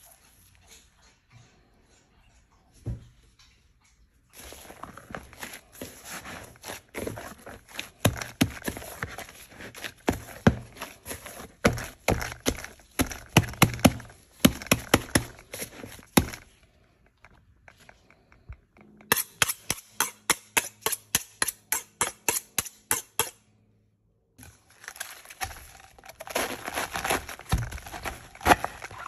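Close, dense crackling and slapping of dough being mixed and kneaded by gloved hands, then a run of regular knocks about three a second. Near the end comes the crunch of a knife cutting into a head of cabbage on a wooden board.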